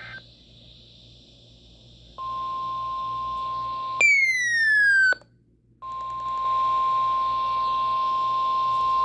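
NOAA Weather Radio 1050 Hz warning alarm tone: a steady high beep over radio hiss, starting about two seconds in. About four seconds in, a louder falling tone is laid over it for about a second; the signal then drops out briefly and the steady tone comes back.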